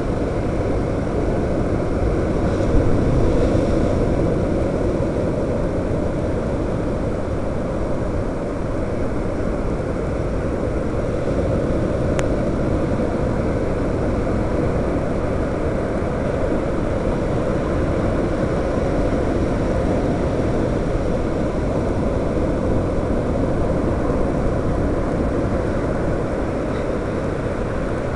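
Quadcopter's motors and propellers running steadily in flight, heard through its onboard camera's microphone as a constant loud rushing drone.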